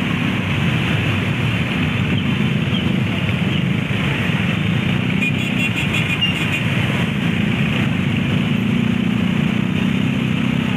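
Dense convoy of motorcycles riding slowly, heard from among them: a steady drone of many small engines, with a few horn toots around the middle.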